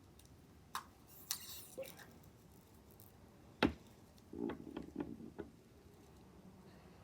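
Handling of a ribbon spool and its plastic covering on a craft table: a few small clicks, a brief crinkle about a second in, one sharp tap a little past halfway, then a short run of light knocks and rubbing.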